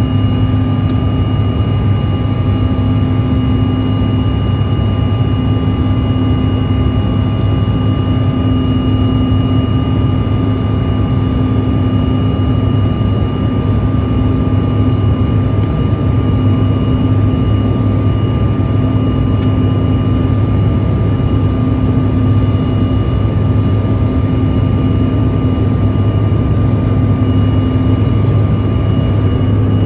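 Steady jet-airliner cabin noise in flight: a loud, unbroken drone of the engines and rushing air, with a few faint steady whining tones above it.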